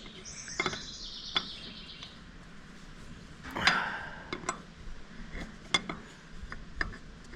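Metal tools and parts being handled: scattered clinks and taps, with a louder scrape about three and a half seconds in.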